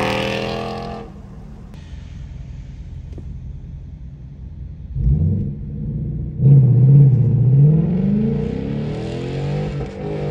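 Ford Mustang Mach 1 V8 with a Steeda aftermarket mid pipe and the factory active exhaust. After a few seconds of low steady rumble, it opens up about five seconds in and pulls away hard, loud, with the exhaust note rising in pitch and dipping briefly before climbing again.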